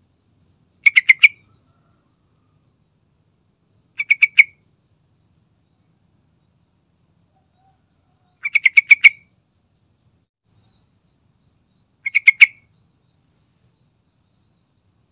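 Yellow-vented bulbul singing: four short phrases of quick notes, each about half a second long, spaced three to four seconds apart.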